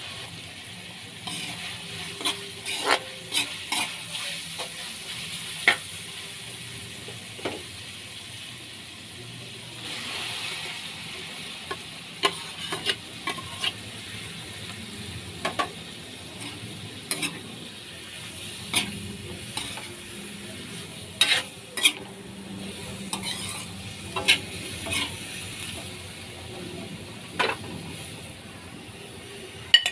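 Food frying in an aluminium wok, a steady sizzle, while a metal ladle stirs it, clinking and scraping against the wok many times at irregular intervals. The food is fried beef intestine, then mixed vegetables for chop suey.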